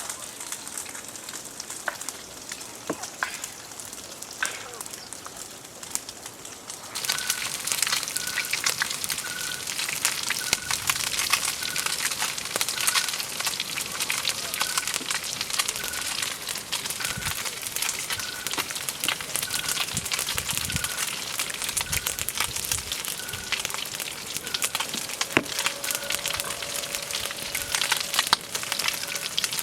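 Campfire crackling and sizzling with many small pops, clearly louder from about seven seconds in. A short high chirp repeats slightly more than once a second over it.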